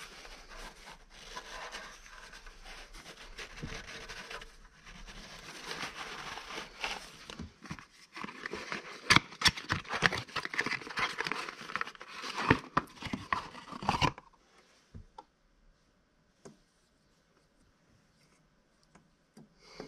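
Paper towel rubbing and wiping around the engine's oil filter housing, then a cardboard oil filter box being opened and the filter taken out, with crinkling and loud sharp clicks of card that stop abruptly about two-thirds through.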